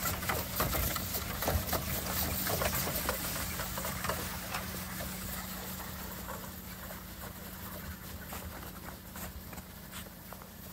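Horse of an Amish buggy clip-clopping along the road, the hoofbeats dense at first and fading steadily as the buggy pulls away.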